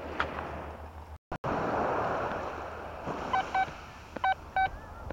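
Quest Q40 metal detector sounding short, pitched beeps, roughly two a second, starting a little past halfway as the coil sweeps over a buried target. A soft rushing hiss comes before the beeps.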